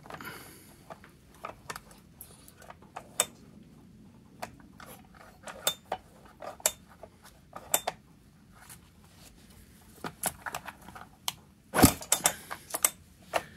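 Scattered small clicks, taps and knocks of hands handling a Husqvarna 365 chainsaw at its top cover and spark plug hole, with a louder cluster of knocks near the end.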